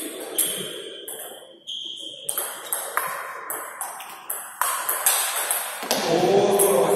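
Table tennis rally: the celluloid-type ball clicks sharply off rubber-faced paddles and the table in quick alternation, about two to three hits a second. A voice is heard near the end.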